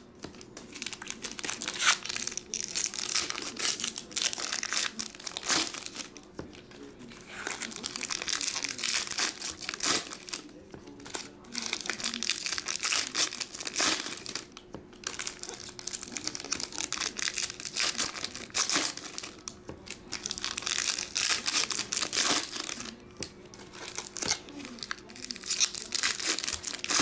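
2023 Topps Series 2 baseball hobby pack wrappers being torn open and crinkled by hand, in irregular bursts with short pauses between packs.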